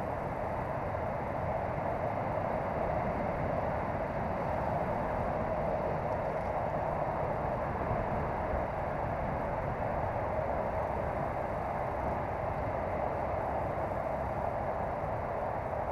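A steady, even rushing noise with no distinct events, unchanged throughout.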